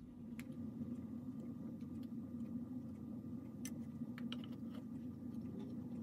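Soldering gun humming steadily while switched on, with a few light clicks from handling the wire and tools.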